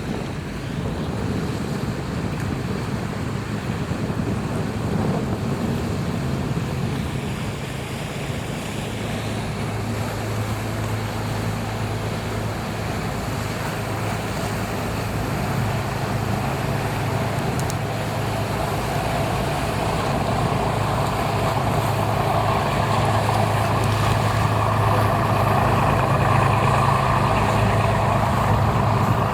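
Coast guard patrol boat's engine droning steadily and growing gradually louder as the boat approaches, with wind noise on the microphone.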